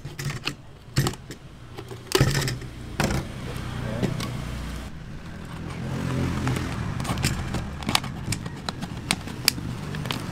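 Utility knife blade piercing and cutting a thin plastic soda bottle, with sharp clicks and crackles of the plastic. A motor vehicle's engine rumbles in the background from about two seconds in.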